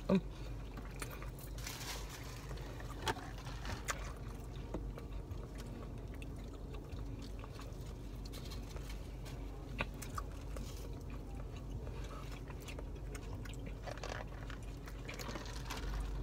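Faint chewing and mouth sounds with a few scattered small clicks, over a steady low hum in a car.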